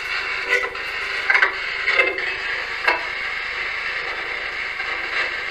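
Handheld spirit box, a radio sweeping through stations: steady radio static chopped by short blips every second or so as it skips from station to station.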